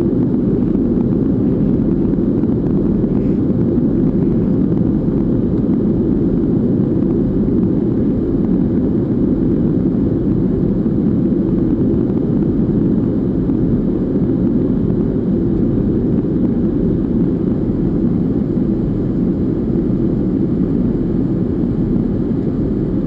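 Steady, even cabin noise of an airliner in flight, a constant deep rush heard from a window seat.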